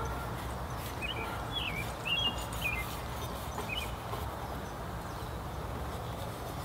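Outdoor ambience with a steady low rumble, and a songbird calling in short chirped phrases: a quick run of chirps about one to three seconds in and another brief one near four seconds.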